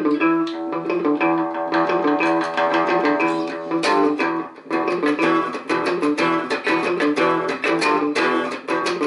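Hollow-body electric guitar picked in a quick run of notes through a repaired Electra EP-401 digital delay, the notes overlapping and lingering as the delay repeats them: the delay is working again.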